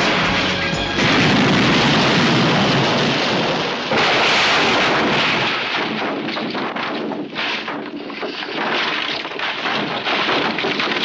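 Crash and blast sound of a car-chase stunt: a sudden loud roaring rush about a second in, a second surge about four seconds in, then a fading crackle and spatter of water and debris.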